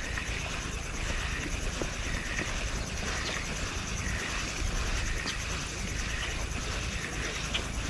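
Wind buffeting the microphone in a steady, uneven rumble, over the soft whir and faint ticking of a spinning reel as a lure is reeled in.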